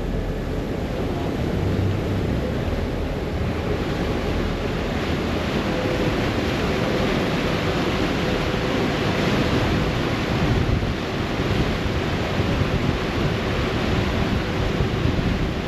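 A ferry's churning wake and wind buffeting the microphone, a steady rushing that grows brighter a few seconds in, over the boat's low engine hum.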